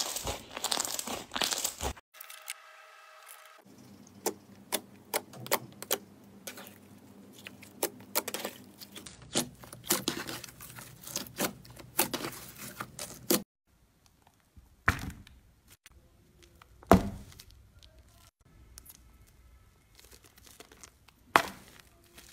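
Slime being pressed, stretched and squeezed by hand: sticky crackling and popping clicks as air pockets in it burst, dense at first, then a steady crackle with a faint low hum under it, then a few single sharp pops near the end.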